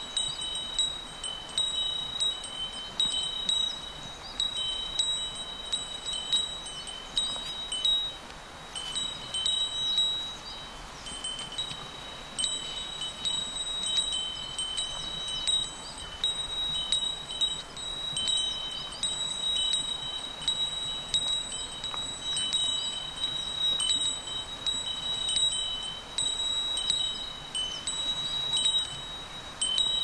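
Bear bell jingling over and over, a strike roughly every second in an uneven rhythm, as it swings while someone walks.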